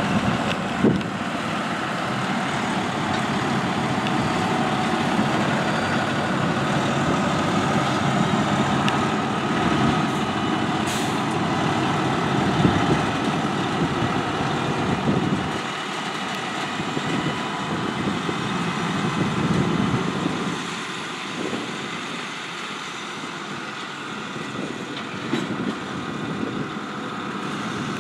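Hi-rail truck's diesel engine running as it tows a loaded gondola car along the track, with steel wheels rolling and clicking on the rails. The sound grows quieter in the second half as it moves away.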